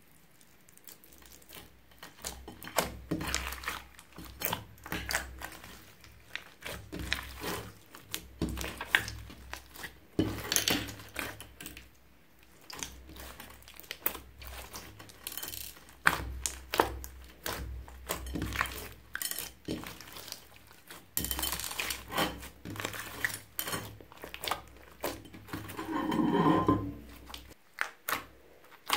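Hands squishing and kneading a lump of clear glitter slime mixed with beads, making irregular wet clicks and pops of trapped air. Near the end comes one longer, lower squelch.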